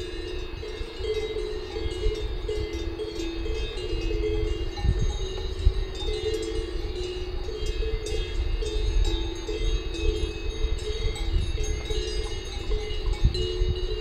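Several cowbells clanking irregularly at a few different pitches, overlapping one another, over a steady low rumble.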